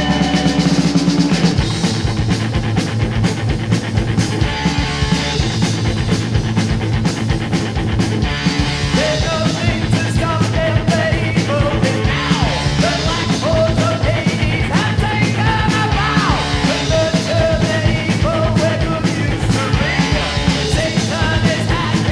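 NWOBHM heavy metal song with drums and distorted electric guitars. A held chord gives way to driving drums about a second in, and a wavering melodic line rises over the band from around nine seconds.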